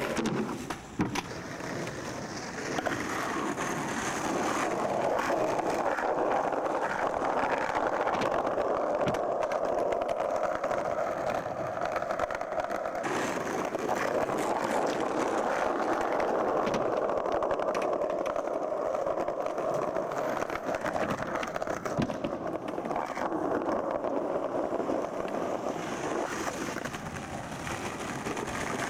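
Skateboard wheels rolling over plaza paving stones, a steady rolling noise, with a couple of sharp clacks of a board, one about a second in and another about two-thirds of the way through.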